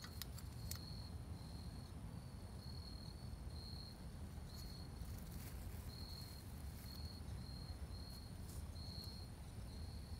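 A cricket chirping steadily, short high chirps of one pitch at about one to two a second, over a low rumble with a few faint clicks.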